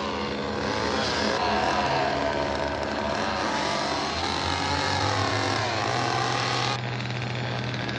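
An engine revving up and down over a dense, rough roar, its pitch dipping and rising. The sound changes abruptly about three-quarters of the way through.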